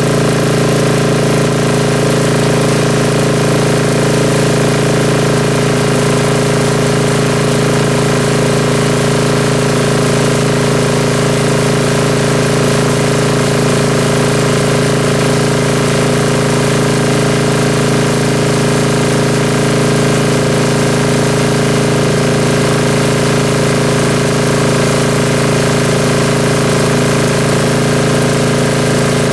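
Diesel engine of an Ingersoll-Rand MC-2A rotary air compressor running steadily under load as the compressor builds receiver tank pressure toward about 150 psi.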